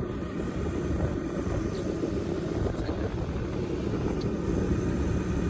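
Motorcycle running at a steady speed, heard from the rider's seat, with a steady rush of wind and road noise.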